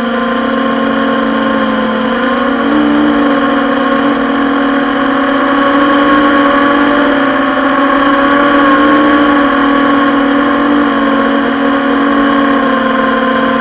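Quadcopter drone's propellers humming steadily in flight, the pitch shifting slightly as it manoeuvres.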